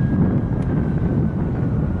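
Wind buffeting the microphone as a loud, uneven low rumble, with a faint high whine that slowly drifts lower in pitch.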